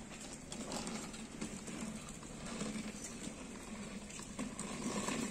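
Plastic wheels of a children's swing car rolling over rough concrete: a faint, steady rolling noise.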